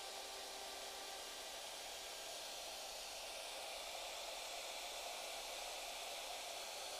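Shaper Origin handheld CNC router and its dust extractor running steadily: an even hiss with a faint whine.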